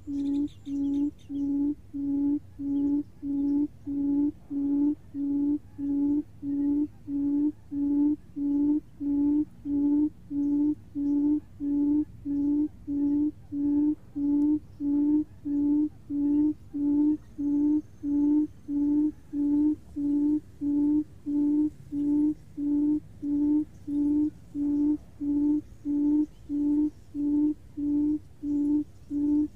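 Buttonquail call played back as a trapping lure: short, low hoots repeated evenly, about one and a half a second.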